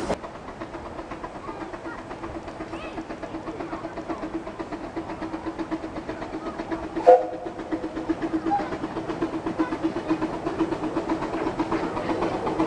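The Ravenglass and Eskdale Railway's narrow-gauge steam locomotive Northern Rock working its train up the line, its rhythmic exhaust beats growing slowly louder as it approaches. A short, sharp sound stands out about seven seconds in.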